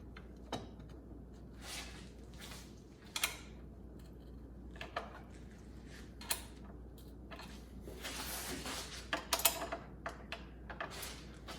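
Scattered clicks and knocks of shifter hardware being handled and fitted into place, with a longer stretch of scraping about two-thirds of the way in followed by a quick cluster of knocks.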